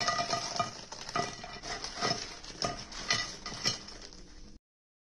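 Metal skimmer clinking and scraping against a plate and pan as fried pakoras are moved, in a run of short knocks with a brief metallic ring. It cuts off suddenly near the end.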